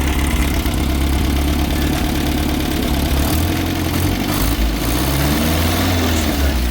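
Car engine idling steadily with a deep, pulsing rumble, the engine of a restored 1960 Nash.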